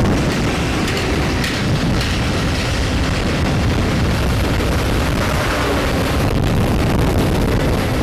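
Wind rushing and buffeting over the microphone of a helmet camera on a moving motorbike: a loud, steady, rumbling noise with the bike's running and road noise under it.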